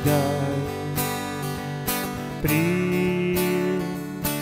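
Acoustic guitar strumming chords as the accompaniment to a worship song, with the strums recurring every half second to a second.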